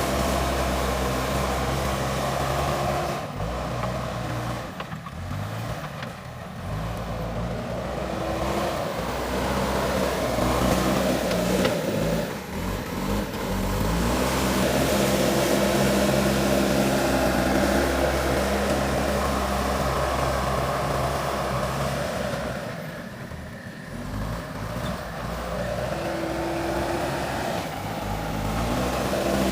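JCB backhoe loader's diesel engine working, its note rising and falling as it revs up and eases off. It drops back twice, about four seconds in and again about three quarters of the way through.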